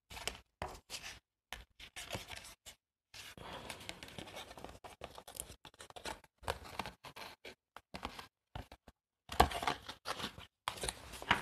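Paper and card being handled on a craft desk: short rustles and scrapes broken by brief gaps, with a few sharper, louder ones near the end.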